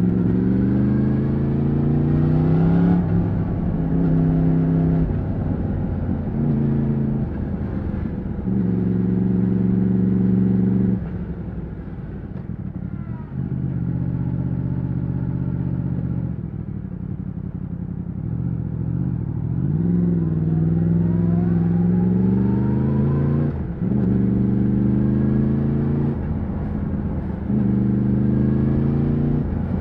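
2020 Yamaha MT-10's crossplane inline-four engine through its stock exhaust, pulling up through the gears with a short break in the engine note at each upshift. It eases off to a lower, quieter note twice around the middle, then climbs through the gears again.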